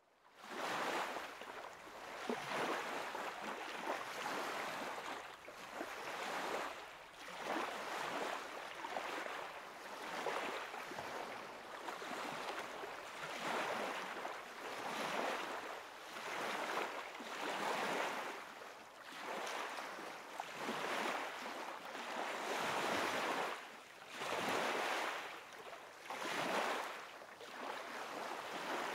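Small wind-driven waves washing onto a sandy lakeshore, the wash swelling and ebbing about every two seconds.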